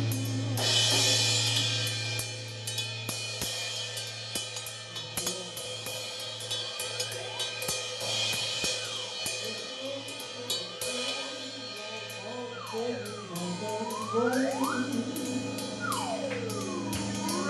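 Drum kit played loosely, with a cymbal crash about half a second in and scattered cymbal and drum hits after it, some on a cymbal held out by hand. A steady low hum runs underneath, and in the last few seconds a tone repeatedly swoops down and back up in pitch.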